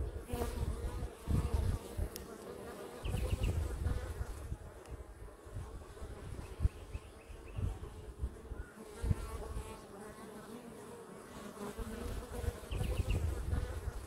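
Honeybees buzzing steadily around the entrance holes of a wooden top-bar hive, with bees coming and going. Bursts of low rumble come and go under the buzz.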